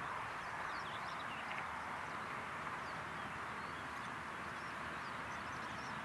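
Steady outdoor background hiss with faint, scattered high chirps of distant small birds.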